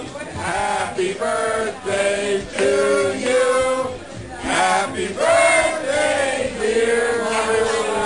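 A group of people singing a song together, men's voices prominent, in held notes that move from one pitch to the next.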